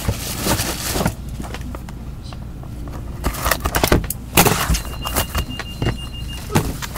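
Cardboard hockey card hobby boxes being handled and opened by gloved hands: irregular scraping, rustling and clicks of cardboard and wrapping, with a quieter spell in the middle. A faint steady high tone sounds in the second half.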